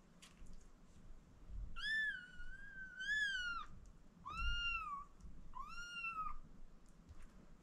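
Four-week-old kittens meowing: three high-pitched meows, the first long with two rises in pitch, the next two short and arching.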